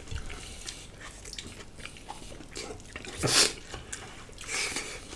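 People eating at a table: faint chewing and mouth sounds with scattered small clicks, and a short, louder rush of noise about three seconds in.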